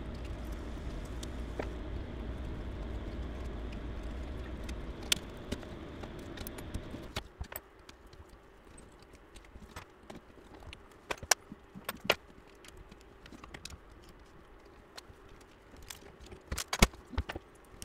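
A steady low hum for about the first seven seconds, then quieter, with scattered sharp clicks and light metallic rattles of small parts and tools being handled as a 3D printer's hot end and Bowden setup are taken off.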